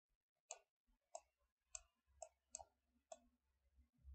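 Faint computer mouse clicks, about six of them, spaced irregularly roughly half a second apart, over a quiet low hum.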